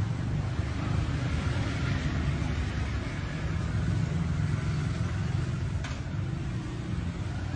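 Street traffic, with a motor scooter and cars passing and a steady low engine rumble.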